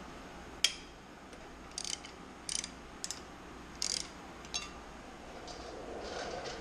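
Metal hand tools clicking and clinking as a socket, extension and ratchet are worked on the exhaust pipe fasteners of a ULPower UL350iS engine: one sharp click just over half a second in, then short clusters of lighter clicks about every half second to second.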